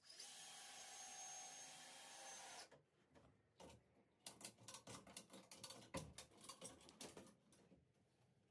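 Lever chain hoist being ratcheted against the weight of a boat engine: a run of faint, sharp clicks, a few a second, from about four seconds in to about seven seconds in, with a faint steady hiss before it.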